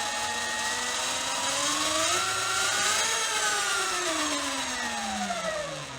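Sur Ron electric dirt bike's motor and chain drive, fitted with a new non-O-ring chain, whining as it spins up, rising in pitch for about three seconds and then falling as it winds down. An occasional click is still there, which the owner thinks may come from failing jackshaft bearings.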